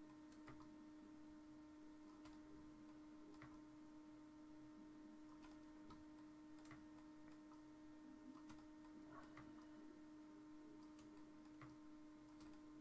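Near silence: a steady hum with faint computer mouse clicks, a dozen or so at uneven intervals.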